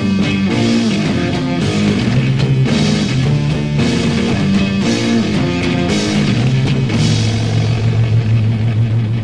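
Rock music without singing: electric guitars over a moving bass line and a drum kit.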